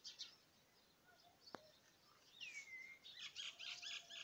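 Faint birdsong: a few short chirps at first, a single sharp click about a second and a half in, then a falling whistled call followed by a quick run of high chirps near the end.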